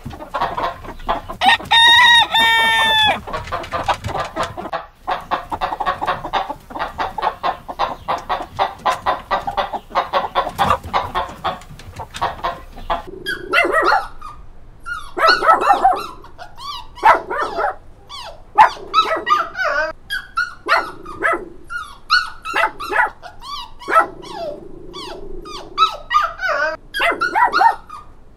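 Chickens clucking, with a rooster crowing once about two seconds in. About halfway through the sound changes to puppies barking and yipping in short, separate calls.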